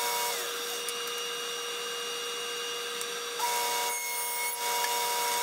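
Table saw with a dado blade stack cutting a dado slot in Baltic birch plywood. The motor's steady whine drops in pitch as the board meets the blade, about a third of a second in, and a rasping cut follows. The whine climbs back up when the cut ends, about three and a half seconds in.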